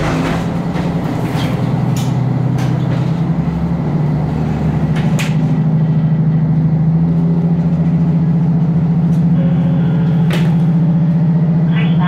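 KiHa 54 diesel railcar running along the line, a steady engine drone that grows louder over the first several seconds and then holds, with a few sharp clicks from the wheels and track.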